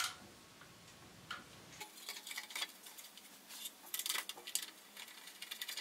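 Faint, scattered metallic clicks and ticks of a small spanner and bolts being worked on a small petrol engine: a few at the start, then more from about two seconds in.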